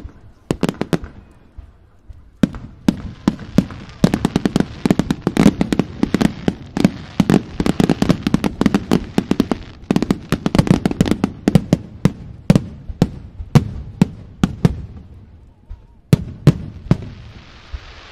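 Large fireworks display: aerial shells bursting in rapid volleys of sharp bangs, densest through the middle, then thinning to scattered single reports. A steady hissing crackle comes in near the end.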